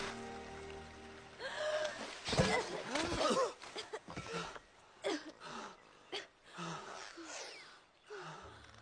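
An animated character gasping and breathing hard after coming out of the water, in short separate breaths and sighs, while the film score fades out in the first second or so.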